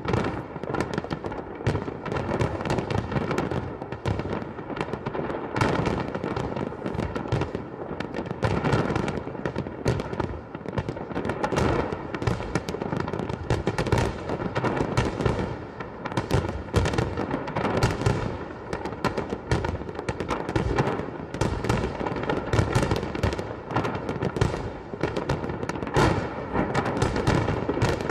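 Fireworks display going off: a dense, unbroken run of bangs and crackling bursts in quick succession.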